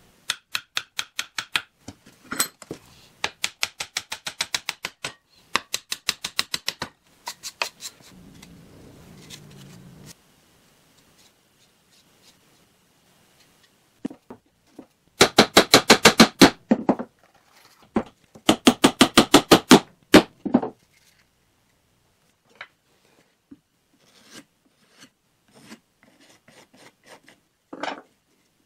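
Claw hammer driving nails into wooden blocks, in rapid runs of sharp blows with pauses between them. The loudest runs come about halfway through, and a few lighter taps follow near the end.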